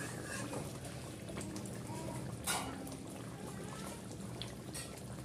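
Chicken curry gravy simmering in a kadai as a spatula stirs it, with wet liquid sounds and one sharp knock of the spatula against the pan about two and a half seconds in.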